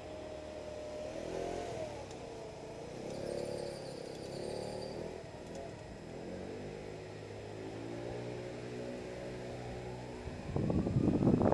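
Road traffic passing: a motorcycle engine whose pitch wavers up and down over the first few seconds, then a steadier low engine hum, then a louder vehicle going by near the end, its pitch rising and then falling.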